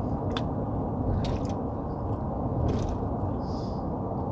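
Steady low rumble of a truck cab with the engine running, with a few short clicks and soft crackles over it.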